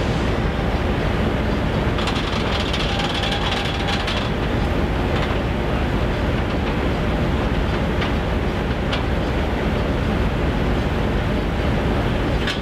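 Diesel locomotive TTI/IRMX 260 idling close by with a steady, loud rumble. A hiss is heard from about two to four seconds in, and a couple of sharp clicks come near the middle.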